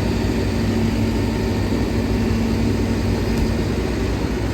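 Farm machinery engine running steadily, with a steady hum that cuts out about three and a half seconds in.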